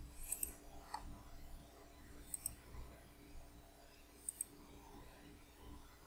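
Computer mouse clicking: about three clicks, each a quick pair of sharp ticks, roughly two seconds apart, over a faint steady hum.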